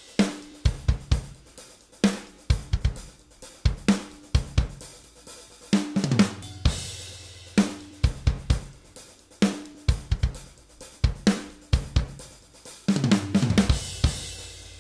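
Soloed raw multitrack drum recording of a rock kit playing back: kick, snare, hi-hat and cymbals in a steady groove, picked up by close mics and room mics. There is a busier run of hits near the end.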